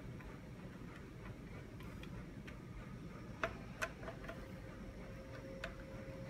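Light clicks and ticks of a Phillips screwdriver snugging up screws into the plastic housing of a Precision Planting vSet2 seed meter to hold on a gearbox, with two sharper clicks a little past halfway and another near the end.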